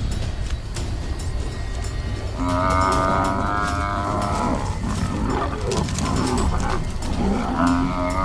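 African buffalo bellowing in distress as lions bring it down: a long drawn-out bellow a couple of seconds in and another near the end, over low growling from the lions.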